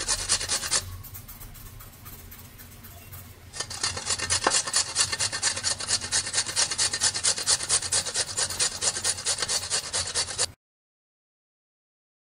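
A block of paneer grated on a stainless steel grater over a steel plate: quick, even rasping strokes, softer for a couple of seconds after the start, then loud again. The sound stops abruptly near the end.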